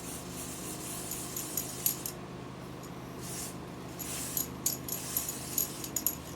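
Aerosol root touch-up spray hissing in several short bursts, with light clicks and rattles between them.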